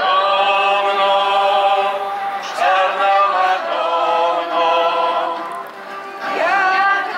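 A group of voices singing together unaccompanied, in long held phrases with brief pauses between them.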